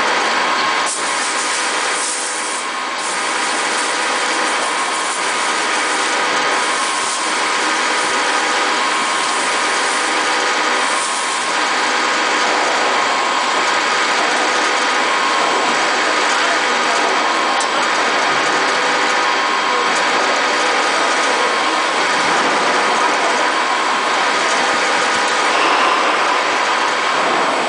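DAMA DMD0620 CNC drilling machine's spindle driving a drill bit through a stack of metal joint plates: a steady mechanical whine and cutting noise as it drills.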